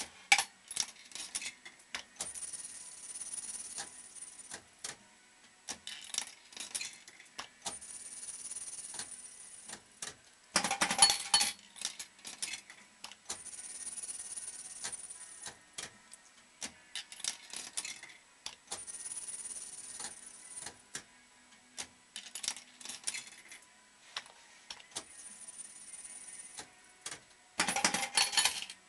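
Bell Fruit Fore & Aft fruit machine going through its plays. Stretches of whirring, each about two seconds long, alternate with bursts of mechanical clicking, and there are two louder clattering bursts, about ten seconds in and near the end.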